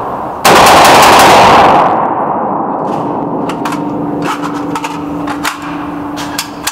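A Faxon ARAK rifle firing one rapid burst of shots lasting about a second and a half, starting about half a second in, followed by a long ringing echo. The rifle is a worn test gun, and the burst shows it still cycles.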